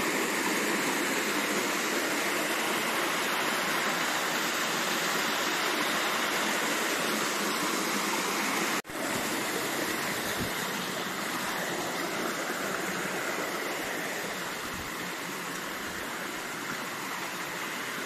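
Steady rushing of water pouring down a waterfall. It breaks off for an instant about nine seconds in and resumes a little quieter.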